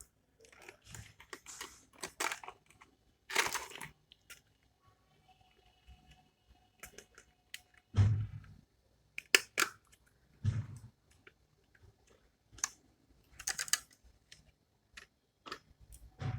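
A pencil box and its packaging being handled: scattered rustling, crinkling and small clicks, with two dull thumps about 8 and 10½ seconds in.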